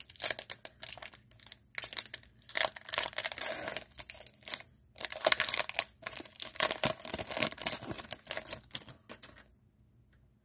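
Metallised foil wrapper of a trading card pack being torn open and crinkled in the hands: a dense run of crackling and sharp clicks that stops near the end.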